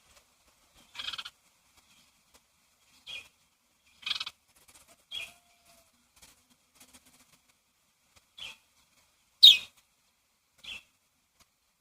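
Birds calling in short, separate chirps, one every second or two, with the loudest about nine and a half seconds in.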